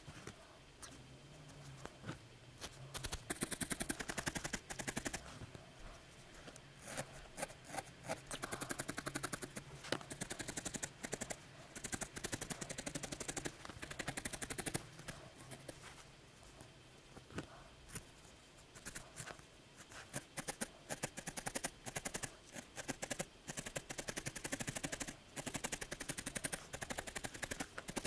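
Felting needle stabbing repeatedly into a small ball of wool roving, shaping a needle-felted cat head: fast runs of sharp pokes in bursts with short pauses between.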